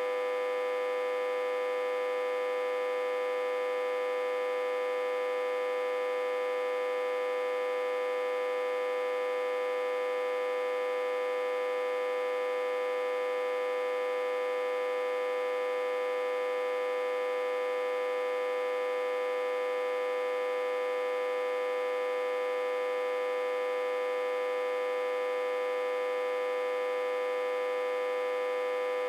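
Autotransformer humming steadily and loudly, one strong buzzing tone with many overtones that never changes, driven at about 60–80 V through a reverse-connected step-down transformer.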